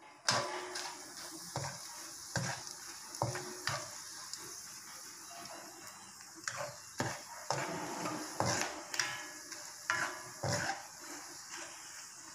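Food sizzling in hot oil in a pan while a spatula stirs it, with irregular knocks and scrapes of the spatula against the pan.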